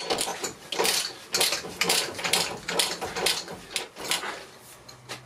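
Ratchet wrench clicking in a quick, uneven run as the front strut's top nuts are tightened to the body, fading out near the end.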